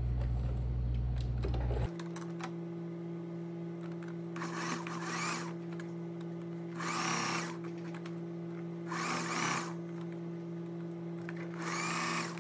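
Singer electric sewing machine running as fabric is stitched, a steady motor hum. About two seconds in the sound changes abruptly; from then on a hissing surge rises over the hum roughly every two seconds.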